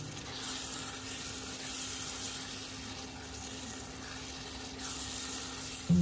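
Beef in a thick chili sauce sizzling and bubbling in a pan while a spatula stirs it.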